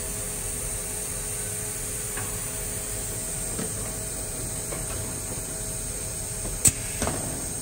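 Haton bread line machinery running steadily at the proofer discharge and conveyor belt, a continuous mechanical hum with a faint steady tone. A single sharp click comes near the end.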